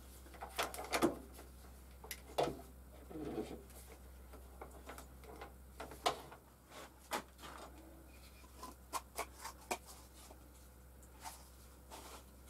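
Scattered light clicks and knocks of small parts being handled on a workbench as a plastic pipe is hot-glued into an MDF base and the glue gun is set down, over a faint steady low hum.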